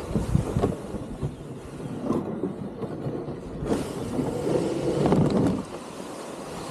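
Wind rumbling and buffeting on an action-camera microphone out on open water, in uneven gusts, with water moving around the kayak.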